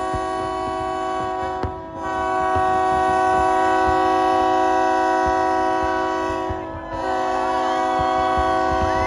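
Several horns sounding together in a long, steady chord, breaking off briefly twice. Low thumps run underneath, and wavering whistle-like tones come in near the end.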